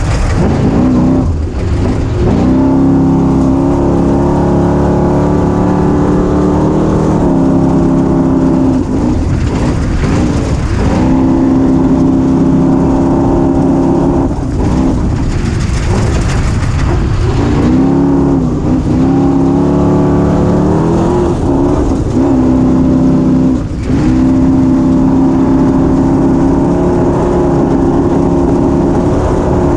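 Engine of a small, apparently 250 cc vehicle running hard under way, over a steady rushing noise. Its pitch holds for a few seconds, drops briefly and climbs back again, about every three to four seconds, as the throttle comes off and back on.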